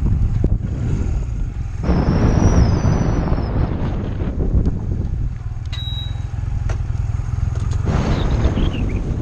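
Honda Rebel motorcycle being ridden, its engine rumbling steadily under a rush of riding noise that swells twice, about two seconds in and again near the end.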